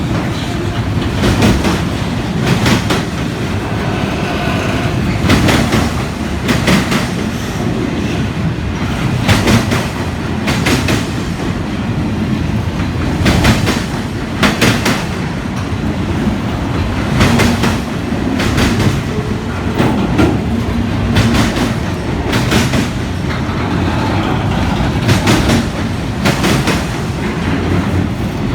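Autorack freight cars rolling past, a continuous low rumble with steel wheels clicking over rail joints in small regular groups, about one group every second and a half.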